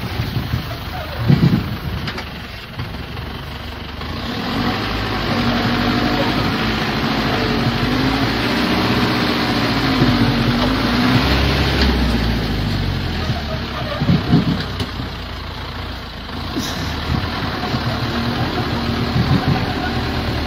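Engine of a heavily loaded six-wheel-drive logging truck labouring over rough mud, its pitch rising and falling as the revs change. A couple of short clunks come from the truck as it lurches, with its front wheels lifting off the ground.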